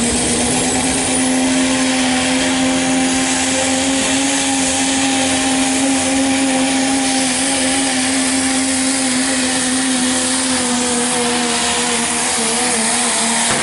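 Pro stock diesel pulling pickup's engine held wide open under load as it drags the pulling sled, a loud steady high-revving drone over a rushing noise. The pitch falls as the throttle is released near the end.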